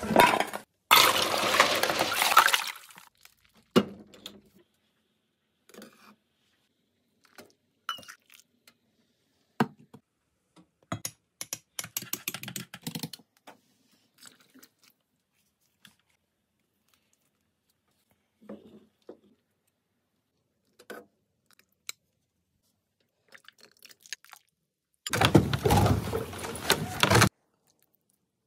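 Kitchen handling sounds: scattered clinks, knocks and clatter of a metal pot and dishes. Two louder stretches of even rushing noise, about two seconds each, come about a second in and near the end.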